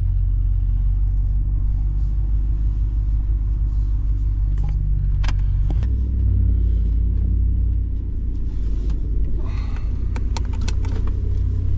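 Vehicle engine running with a steady low rumble, a sharp click about five seconds in and a few light clicks and rattles near the end.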